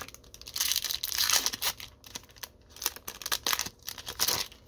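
Foil trading-card pack wrapper being torn open and crinkled by hand. There is a dense stretch of tearing and crackling in the first two seconds, then scattered crinkles.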